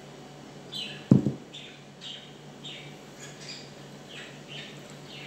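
A bowl set down on the table with one sharp thump about a second in, followed by a run of short eating noises, about two a second.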